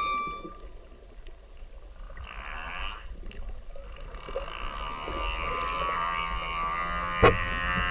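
Whale calls: a short raspy call about two seconds in, then from about halfway a long drawn-out call with many overtones. A single sharp click sounds near the end.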